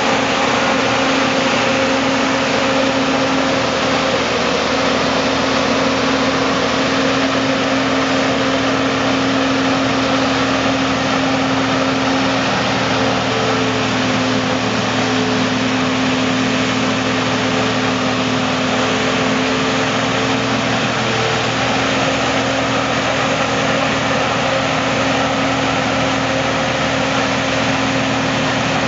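John Deere 5830 self-propelled forage harvester running at steady working speed while chopping maize, a constant engine drone with held tones. The pitch dips slightly about two-thirds of the way through.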